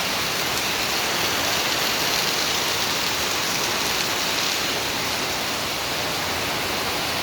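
Heavy rain pouring down in a steady, unbroken hiss: a downpour heavy enough to set off flash flooding.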